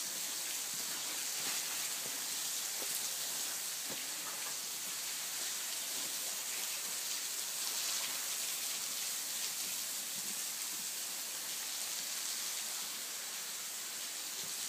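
Small waterfall dropping from a rock ledge and splashing onto rocks and a shallow pool: a steady, even patter of falling water.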